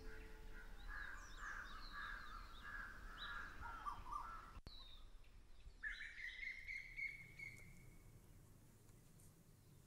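Faint bird calls: scattered chirps and short sweeping whistles, then one held whistle lasting about two seconds from around six seconds in.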